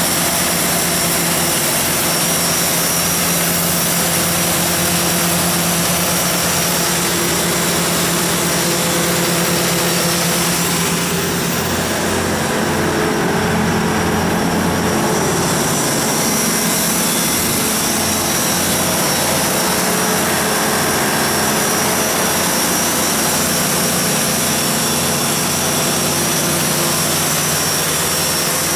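John Deere 6090HF485 turbocharged inline six-cylinder diesel engine of a Magnum MMG320 generator set running at a steady speed. The high hiss thins for a few seconds about halfway through, then returns.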